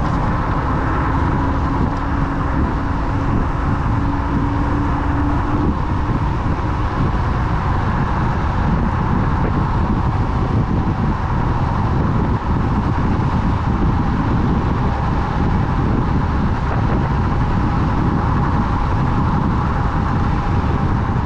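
Wind rushing over the microphone and tyre noise from a Kaabo Wolf King GT electric scooter ridden at speed, with a steady whine running under it.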